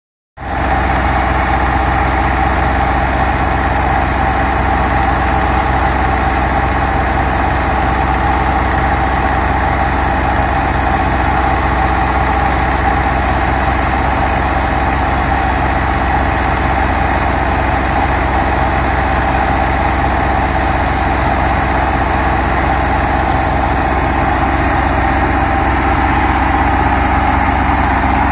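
New Holland Dabung 85 tractor's four-cylinder diesel engine running steadily under load, powering a wheat thresher through its PTO, with the thresher's drum whirring in the mix.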